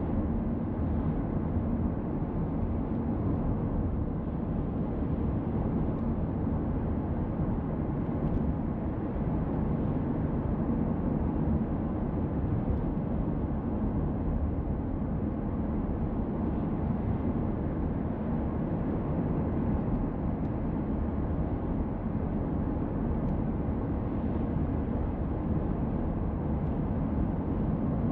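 Steady road noise of a car driving: an even, low rumble of tyres and engine.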